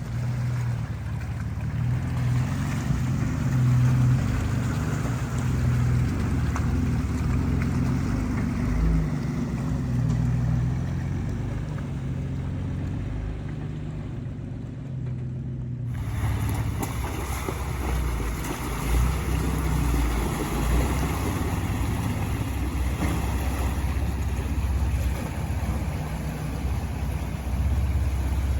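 Off-road vehicle driving: a steady engine rumble with tyre and wind noise over it. The higher part of the sound changes abruptly about sixteen seconds in.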